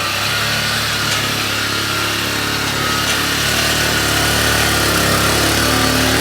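Small engine of a motorized farm vehicle (garong) running steadily at an even speed.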